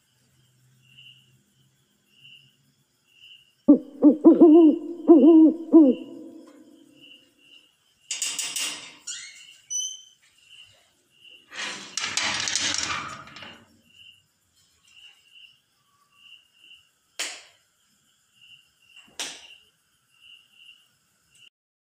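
An owl hooting in a quavering series about four seconds in, over a faint steady chirping of about two chirps a second. Two bursts of hissing noise follow, then two sharp knocks near the end.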